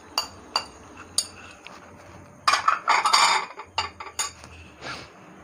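A metal spoon clinking and scraping against a ceramic plate as crushed jaggery is knocked off into a pan of sugar: a few sharp clinks, then a longer clatter of utensils around the middle, and a couple more clinks near the end.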